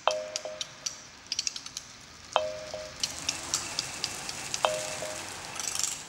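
Electronic soundtrack of crackling clicks with a short two-note blip that repeats three times, about every two and a half seconds; a hiss rises after about three seconds.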